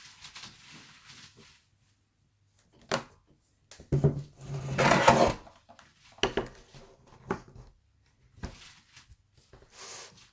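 Hard objects being handled on a work surface: a few sharp knocks and clicks, with a louder scraping slide about four to five seconds in, as the laptop is moved and turned over to start opening it.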